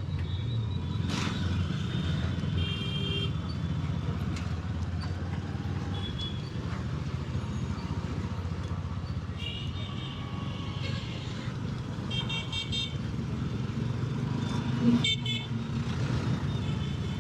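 Motorcycle engine and road noise running steadily while riding, with short vehicle horn toots from the traffic several times, the loudest near the end.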